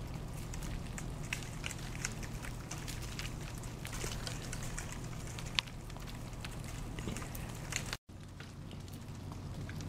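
Ice breaking off rime-coated pine branches and falling through the needles: a steady patter of many scattered small ticks and clicks. The sound drops out for an instant near the end.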